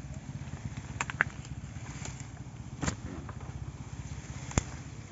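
A motor engine runs with a steady low hum. Over it come a few sharp snaps and cracks as cassava stems and roots are pulled from the soil: two about a second in, one near the middle, and the sharpest near the end.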